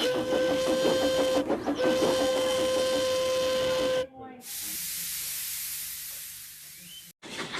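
Steam-train sound effect: a steady steam whistle blows over rapid rhythmic chuffing for about four seconds, with a brief break, then cuts off. A long hiss of escaping steam follows and fades. A short separate burst of sound comes near the end.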